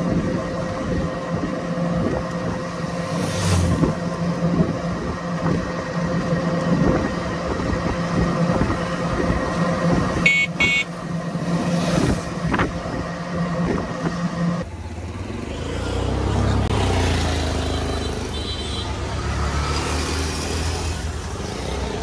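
Motor vehicle running during a road ride, with a steady engine hum and road noise and a brief horn toot about ten seconds in. About two-thirds of the way through the sound changes abruptly to a lower rumble.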